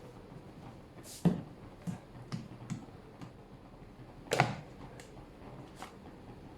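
Scattered knocks and taps of kitchen containers being handled, two louder knocks about a second in and about four and a half seconds in, with lighter taps between.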